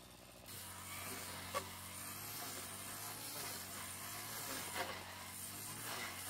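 A small engine running steadily, its hum changing about half a second in, with a couple of sharp clicks.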